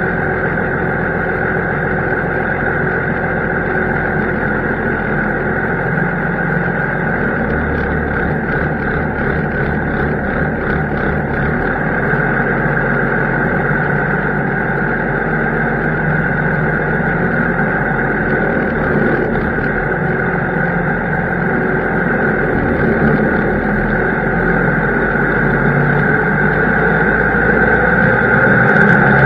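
Heavy farm tractor engine running steadily under load, a low drone with a steady high whine over it, growing slightly louder near the end.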